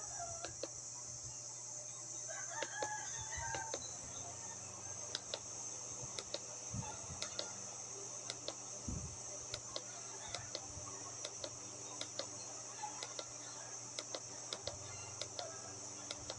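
A rooster crowing in the background about three seconds in, over a steady high-pitched hiss and scattered light clicks.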